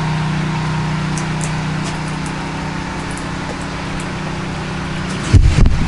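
Pressure washer engine running steadily at a fixed speed. A burst of loud low thumps comes just before the end.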